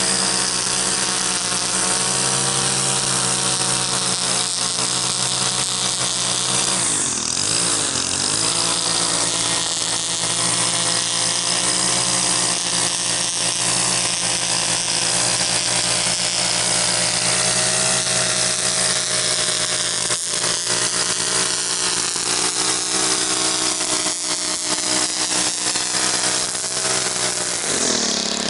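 Gas string trimmer engine running at high throttle while edging grass along a concrete sidewalk. The engine briefly eases off and picks back up about seven seconds in, and drops back near the end.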